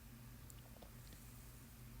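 Near silence: a steady faint low hum and hiss, with a few faint ticks about half a second to a second in.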